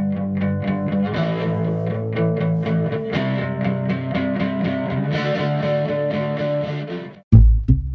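Instrumental music: plucked guitar notes in a steady rhythm over held chords. About a second before the end it cuts suddenly to a louder passage with heavy bass hits.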